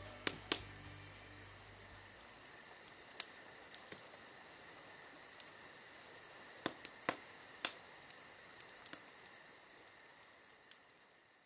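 Crickets chirping in a steady high trill, with a dozen or so irregular sharp clicks scattered through it; everything fades out near the end.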